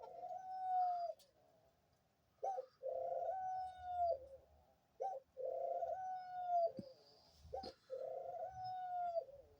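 A female pet dove cooing, dry in tone. Each of three coos is a short note followed by a longer held note, with short pauses between them.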